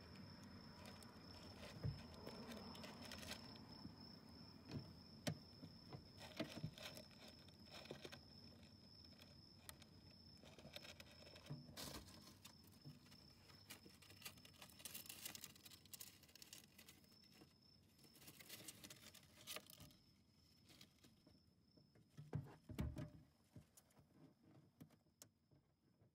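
Faint rustling and scratching from a Djungarian hamster moving through sandy litter and wood-shaving and paper bedding, with scattered small clicks and knocks.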